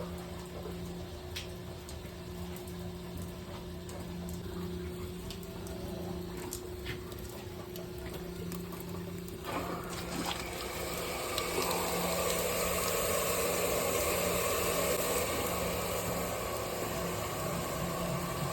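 Hot water hissing and spraying from a leaking expansion tank, over a steady hum from boiler-room equipment. About nine seconds in, a much louder rush of water starts suddenly and builds: the T&P relief valve opened to bleed off the pressure.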